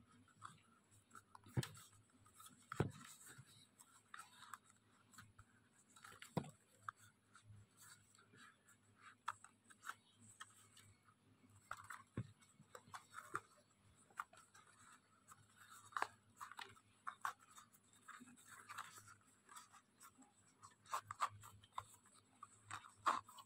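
Faint rustling and scraping of young coconut-leaf (janur) strips as hands pull them through and tighten a woven ketupat casing, with a few sharp taps now and then.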